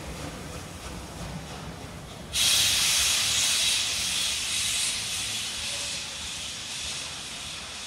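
Class 35.10 steam locomotive 35 1106 pulling away, with a loud steam hiss from its open cylinder drain cocks that starts suddenly about two seconds in and slowly fades, over a low rumble.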